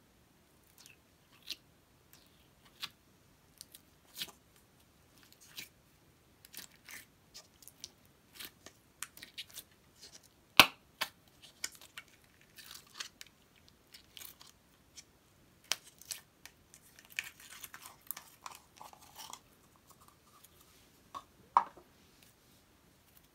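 Glitter slime being poked, pressed and squeezed with fingers in its plastic tub: scattered sticky clicks and pops, one sharp pop about ten seconds in, and a run of crackly squishes near the end as the slime is handled.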